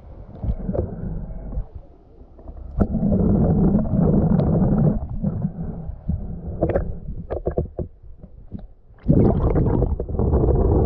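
Muffled sloshing and rumbling of sea water in surges of two to three seconds, with scattered knocks in between.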